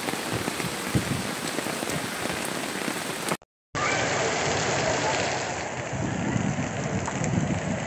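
Heavy rain falling, a steady hiss of rain on the ground and water. About three and a half seconds in it cuts out for a moment and resumes as a second downpour on a flooded paved street.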